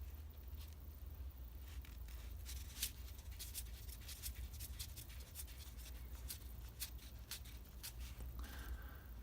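Faint small clicks and scrapes as a threaded union, its threads wrapped in PTFE tape, is screwed by hand into the port of an electric fuel pump, over a low steady hum.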